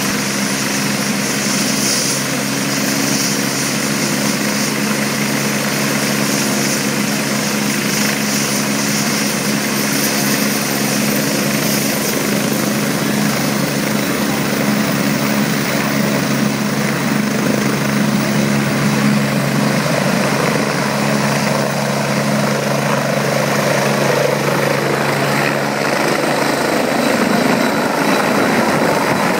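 Twin-turbine Agusta A109 helicopter running: a steady rotor hum with a high turbine whine over a broad rush of noise, the low hum shifting in pitch near the end.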